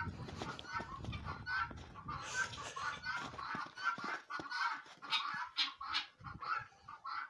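Hens clucking, many short calls repeating several times a second.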